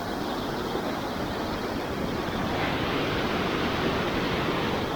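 Rushing water of a mountain creek where the bridge has washed out, a steady wash that grows a little louder and brighter about halfway through.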